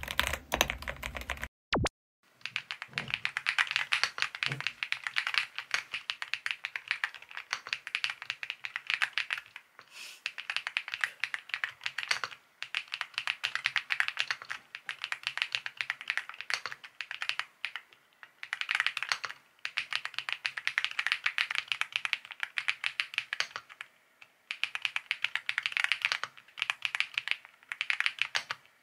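Fast typing on a gasket-mounted aluminium-cased mechanical keyboard (EPOMAKER x Feker Galaxy80) with Marble White switches: a quick run of key clacks, coming in runs of a few seconds separated by brief pauses, starting about two seconds in.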